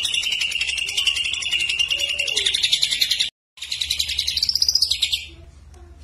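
Caged greater green leafbird (cucak ijo) singing a loud, rapid, buzzy trill. It breaks off for a moment a little after three seconds in, resumes slightly higher, and stops about five seconds in.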